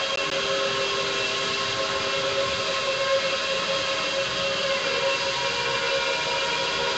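Guitar drone: several steady tones held together over a hiss, with no beat and no pauses.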